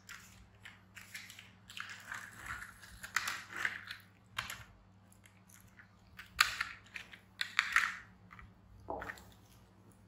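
Yellow plastic toy excavator scraping and clattering on a tile floor while baby monkeys handle it, one gnawing on the plastic digger arm: irregular crunches, clicks and scrapes, the loudest bunched about six and a half and eight seconds in.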